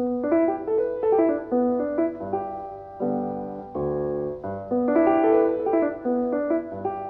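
Piano music, a light tune of short notes and chords that starts suddenly out of silence.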